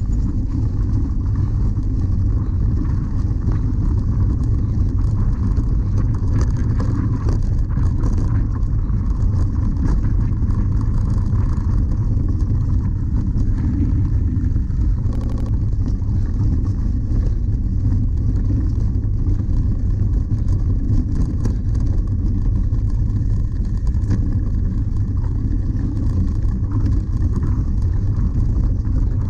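Wind rumbling over the microphone of a camera riding on a cyclocross bike across bumpy grass, with faint rattles and ticks from the bike.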